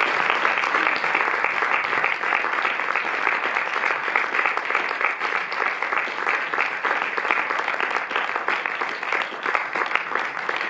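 An audience applauding: dense, steady clapping that thins a little near the end.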